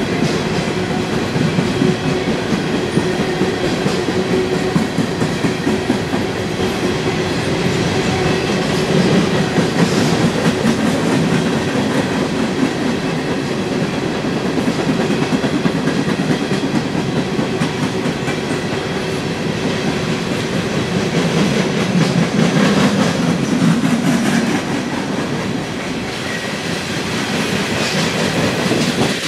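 Empty coal hopper cars of a freight train rolling past, a steady loud rumble and rattle with clickety-clack of wheels over the rail joints.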